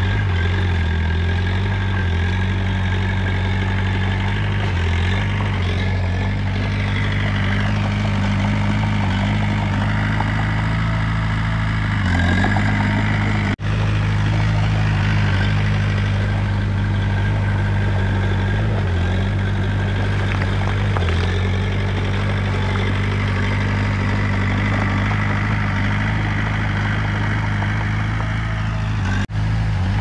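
Komatsu D20 bulldozer's diesel engine running steadily, with brief dips in its note now and then and a faint high whine over it. The sound cuts out for a split second twice, about halfway through and near the end.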